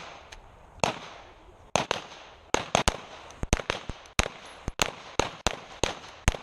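Handgun fire on a pistol range: about twenty sharp shots at an uneven pace, some overlapping, as several shooters fire at once, each shot trailing a short echo.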